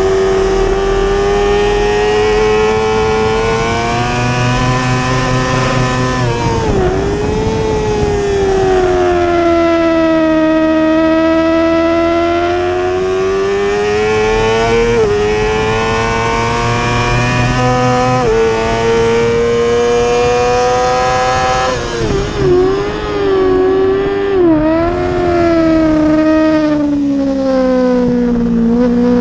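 Yamaha YZF-R6's inline-four engine revving hard at racing speed, its pitch sweeping down and back up over and over as the bike slows and accelerates, with a few sudden jumps in pitch. Constant wind noise runs beneath it.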